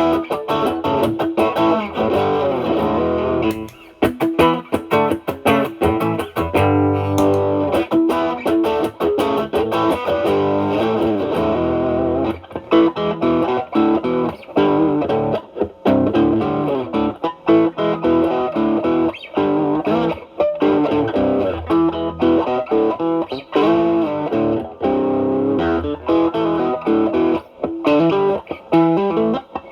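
Fender Stratocaster with single-coil pickups played through an Ibanez Tube Screamer Mini overdrive set to full drive, into the clean channel of a Marshall Valvestate amp. It is playing single-note lead lines with bent notes in a blues style.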